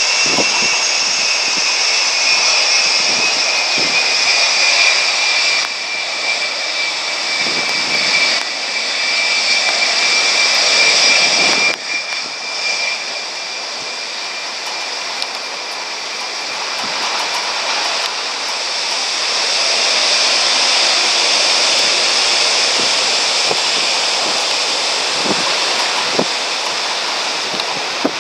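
Boeing 757 turbofans, Rolls-Royce RB211s, running at taxi power as the jet rolls past: a steady rush of engine noise topped by high-pitched whines. The sound drops back about twelve seconds in and swells again later.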